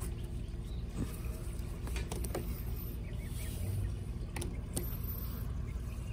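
Steady low rumble of wind on the microphone, with a few light clicks and taps as line is pulled through the trampoline's grommets and lacing.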